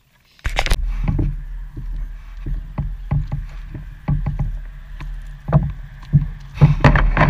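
A small boat being launched or set off on the river: irregular knocks on the hull over a steady low rumble, starting about half a second in after a moment of near silence.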